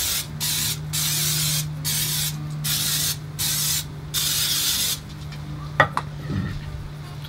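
Aerosol can of cooking oil spraying onto breaded chicken, hissing in about six short bursts that stop about five seconds in. A sharp click follows near the end.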